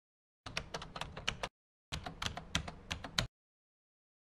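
Keyboard typing sound effect: two runs of rapid key clicks, each about a second long, with a short pause between.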